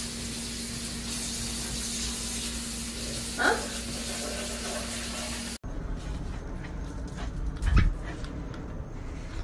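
A kitten mews once, a short rising cry over a steady hiss and low hum. After a cut come a few dull thumps.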